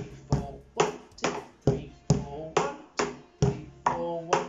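Wooden drumsticks playing a steady beat on a homemade drum with a taped plastic skin, a bit over two strokes a second: two strokes on the rim, then two on the skin, repeated.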